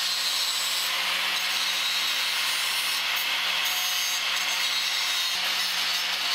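Angle grinder grinding steel: a steady, unbroken hiss of the disc on metal over a faint even motor hum.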